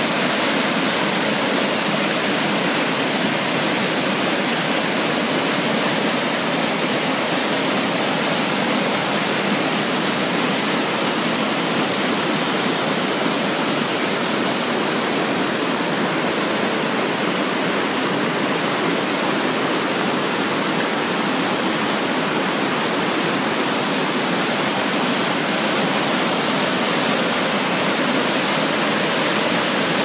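Close-up waterfall in heavy, churning flow: a steady, unbroken rush of falling water.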